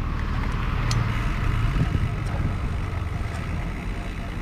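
Steady low rumble of a mountain bike rolling along a dirt farm road, with a few faint ticks.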